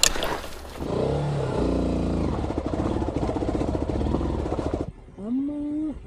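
Honda XR190 dirt bike's single-cylinder engine running and revving with a rapid, even firing pulse. It starts about a second in and cuts off suddenly just before the end, followed by a short rising tone.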